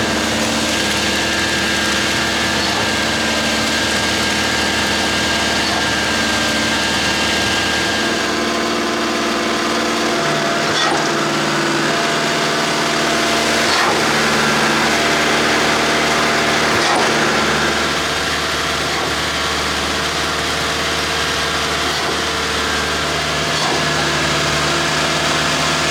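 Engine running steadily, its pitch shifting up and down in steps a few times, about ten, eighteen and twenty-three seconds in.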